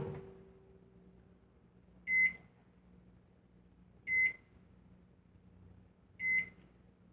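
Microwave oven beeping three times, about two seconds apart, each a short high beep.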